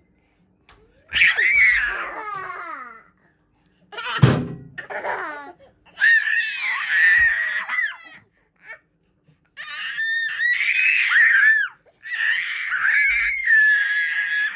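Two toddlers laughing, high-pitched, in about five bouts of a second or two each, with a thump about four seconds in.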